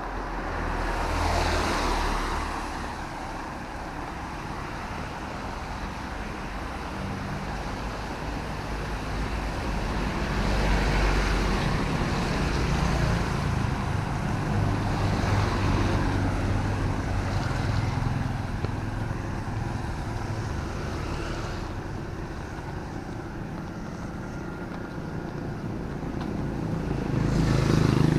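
Road traffic passing on a wet city road in drizzle: several vehicles go by one after another, each swelling and fading in a hiss of tyres on wet tarmac over a steady low engine rumble.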